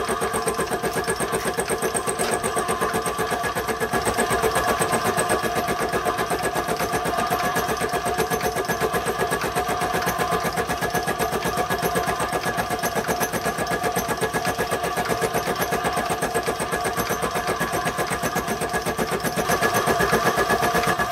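Homemade Gingery milling machine running with a fly cutter skimming the edge of a work-table rail: a steady machine sound with a fast, even rhythm of cutter strikes.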